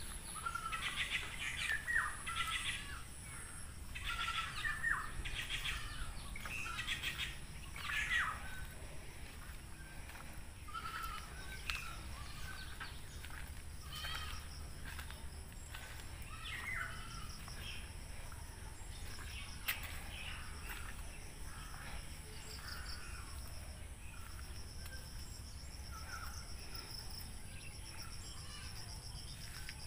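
Several birds chirping and calling in a village, a busy run of overlapping chirps in the first eight seconds or so, then sparser calls. Under them runs a steady high-pitched whine, joined about two-thirds of the way through by a fast pulsing high trill.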